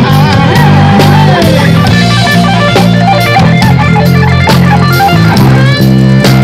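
Rock band playing, led by an electric guitar solo of fast note runs and bends over a steady bass line and drums.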